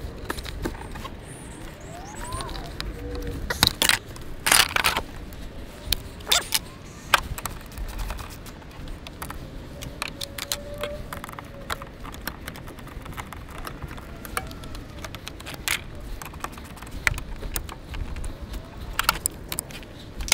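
Hand ratchet with a 10 mm socket clicking in short runs as the battery bracket and terminal bolts are worked loose. Metal tools clink and knock against the fittings now and then.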